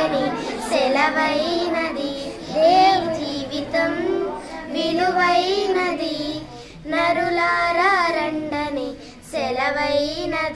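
Two young girls singing a Telugu Christian song together.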